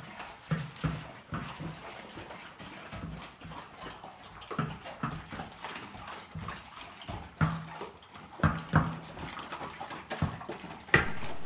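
Several Labrador retrievers eating from stainless steel bowls, with irregular chewing and lapping and the bowls knocking and scraping on the tiled floor.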